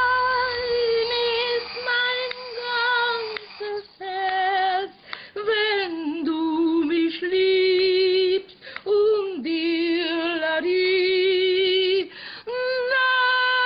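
A woman singing with no accompaniment: long held notes with a wide vibrato, moving between a higher and a lower pitch, with short breaks for breath between phrases.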